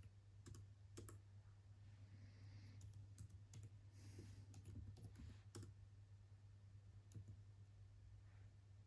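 Faint, scattered clicks of a computer mouse and keyboard keys, about ten over several seconds, with two brief soft rustling passes between them.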